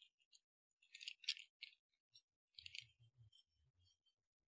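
Faint, scattered clinks and rattles of small metal brake pad clips being picked out of their bag by hand.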